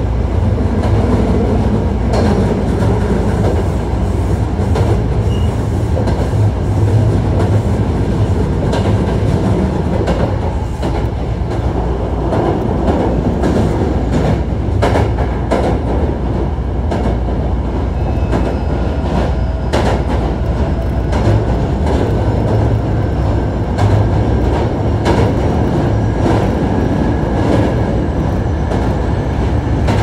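Hankyu 1300 series electric train running, heard from inside the car: a steady rumble with the wheels clicking over rail joints.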